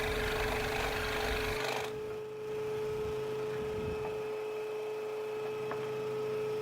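Electric scroll saw running with a steady hum. The lower rumble and hiss drop away about two seconds in, leaving the hum.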